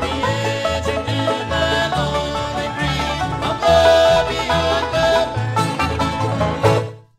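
Instrumental bluegrass band playing the last bars of a song on banjo, guitar and bass, stopping abruptly about seven seconds in.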